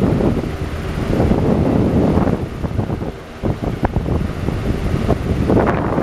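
Galaxy box fan running on high, its airflow rushing and buffeting against the microphone.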